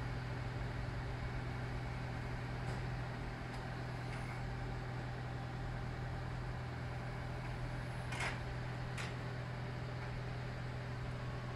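Steady low hum of an airport people-mover shuttle train standing at its terminus, with two short sharp clicks about a second apart near the two-thirds mark.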